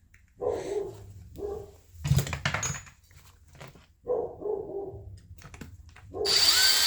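A dog barking in short bursts, three times, with two louder clattering noises in between, the second near the end.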